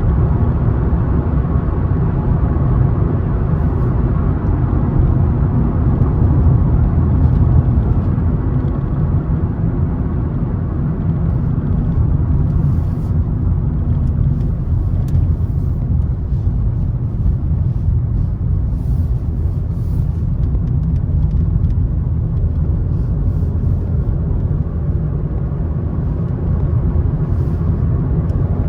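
A car driving along a road: a steady low rumble of road and engine noise, with faint light ticks now and then in the second half.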